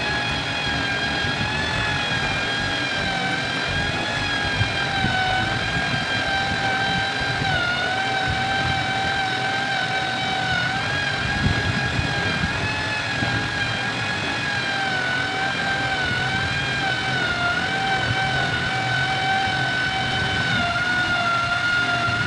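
Electric drill running steadily, its motor whining with small dips in pitch as the bit bores slowly through a plywood drawer front for a drawer lock cylinder.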